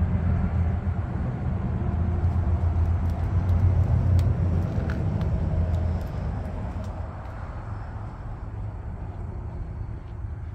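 Low, steady rumble of an idling engine that eases off about six seconds in, with a few light clicks over it.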